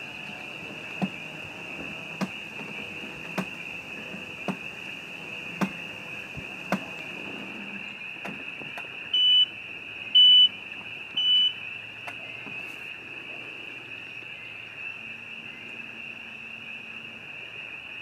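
A steady, high-pitched chorus of frogs trilling, typical of spring peepers. It is broken in the first half by a run of sharp clicks about a second apart. A little past the middle come three loud, short beeps about a second apart.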